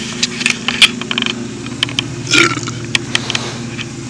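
A vehicle idling with a steady low hum, under scattered clicks and knocks of handling. A short burp comes about two and a half seconds in.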